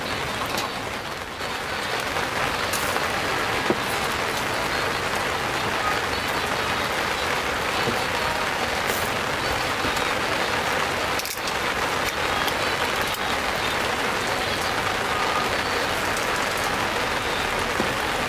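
Steady rain falling and pattering on surfaces, with a few sharper drop hits scattered through it.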